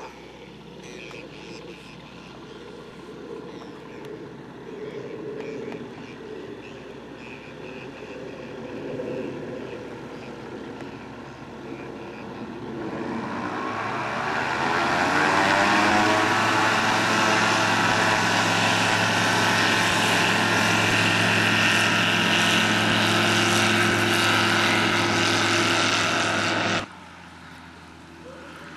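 Zenith STOL CH 701 floatplane's engine and propeller running at low power, then throttling up about halfway through with the pitch rising, to loud steady full power for the takeoff run. The sound cuts off abruptly near the end.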